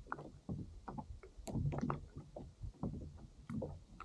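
Water lapping and slapping irregularly against a fishing kayak's hull, with small knocks.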